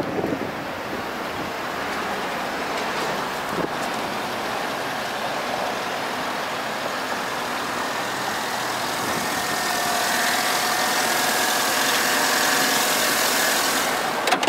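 2014 Cadillac Escalade's V8 idling, a steady hum that grows louder toward the end, with a faint whine in the last few seconds. A couple of sharp clicks come right at the end.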